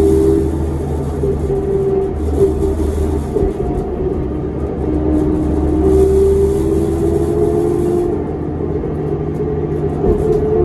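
Interior ride sound of a New Flyer D40LF transit bus with a Cummins ISL diesel and ZF Ecomat automatic: a steady engine rumble with a drivetrain whine that rises and falls in pitch, heard from inside the cabin.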